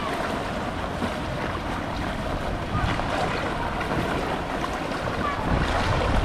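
People wading through shin-deep floodwater: steady sloshing and splashing of water around the legs, with wind rumbling on the microphone.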